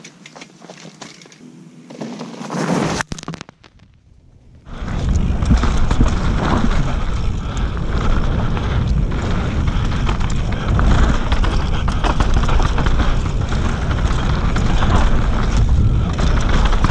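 Mountain bike riding down a dusty dirt trail, heard from a camera mounted on the bike: a steady rush of wind on the microphone with the rumble of tyres on dirt and the bike rattling over bumps. It starts suddenly about five seconds in, after a few quieter seconds of light clicks and a short gap.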